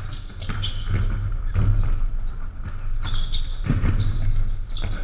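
Basketball bouncing on a hardwood gym floor, irregular thuds echoing in the large hall.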